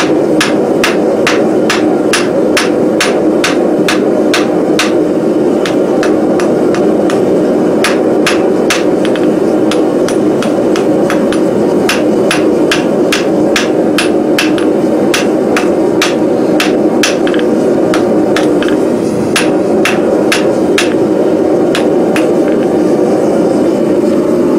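Blacksmith's hand hammer striking a red-hot steel billet on an anvil in a steady rhythm of about two blows a second, squaring up and straightening the bar. A steady rushing noise runs underneath.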